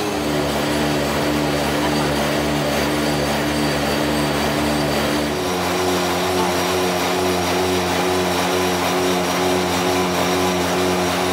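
A motor or engine running steadily with a droning hum. Its pitch steps up slightly about five and a half seconds in.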